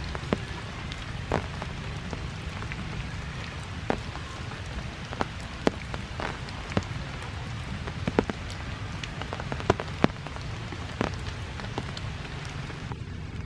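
Steady rain falling on forest foliage, with irregular sharp drip-like clicks close by.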